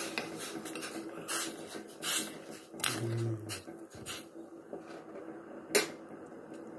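Tea with ground clearing-nut powder and sugar heating toward the boil in a steel pot on a gas stove: a steady hiss with a few sharp clicks scattered through it, the sharpest near the end.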